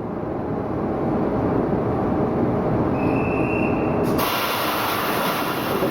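Akasaka AX31R marine diesel engine being started on the test bed: a steady heavy mechanical din, with a short thin whistle about three seconds in and a sudden rush of hiss about four seconds in.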